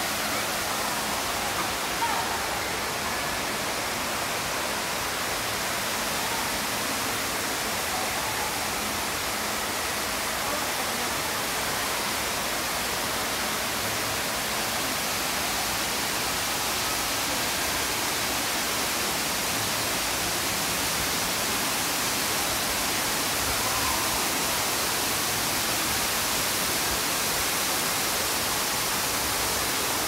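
Indoor waterfall: many thin streams of water falling down a tall planted wall and splashing onto the ground, a steady rush.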